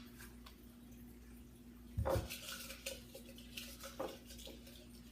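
Dishes and containers being handled on a table, giving scattered light knocks and clinks, with a louder thump about two seconds in and another knock about four seconds in.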